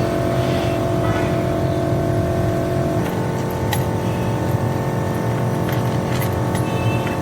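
Engine running steadily with a low rumble and a steady whine, the whine shifting slightly about three seconds in, with a few light clicks over it.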